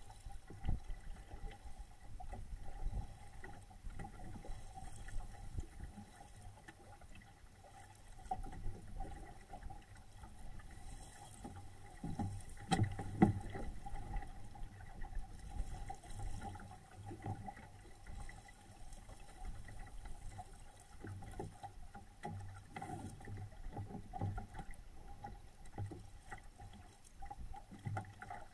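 Water lapping and sloshing against the hull of a small home-built SCAMP sailboat under sail, with scattered knocks from the boat and a sharper knock about 13 seconds in, over a faint steady hum.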